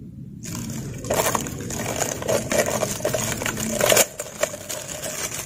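Thin plastic sheet crinkling and rustling as hands untie it and pull it off the mouth of a jar, a dense crackle that starts about half a second in and drops off sharply about four seconds in.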